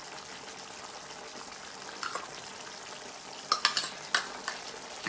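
Wooden spatula stirring a thick cauliflower and green pea curry in a nonstick pan, over a steady simmering hiss. A few short scrapes and clicks of the spatula on the pan come about two seconds in and in a cluster near the end.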